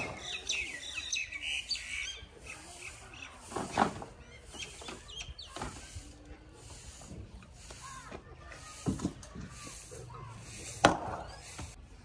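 Axe chopping a dead log, single sharp strikes a few seconds apart, the loudest about 4, 9 and 11 seconds in. Birds chirp during the first couple of seconds.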